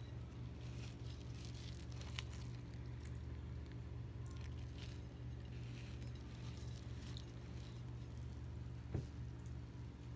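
Steady low hum under faint rustles and small clicks of the camera being handled, with a sharp click about two seconds in and a louder knock near the end.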